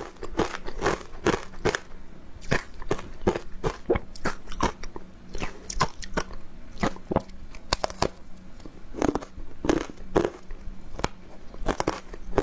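Close-up crunching of frozen matcha ice being bitten and chewed: a steady run of sharp crisp crunches, about two a second.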